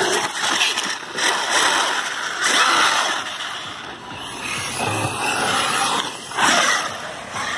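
Radio-controlled trophy trucks running on a dirt race track: an uneven noise of motors and tyres on dirt that rises and falls, with no steady motor tone standing out.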